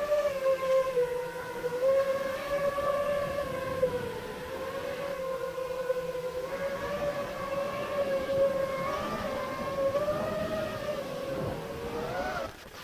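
5-inch quadcopter FPV drone's brushless motors and propellers whining in flight, the pitch wavering up and down with the throttle. Near the end the whine rises briefly, then cuts off suddenly as the drone crashes into a tree.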